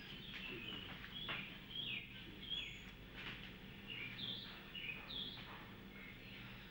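Birds chirping: many short, quick calls, several overlapping, at a quiet level.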